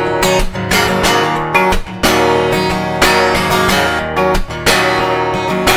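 Acoustic guitar strummed in a steady rhythm, with repeated sharp, percussive strokes over ringing chords.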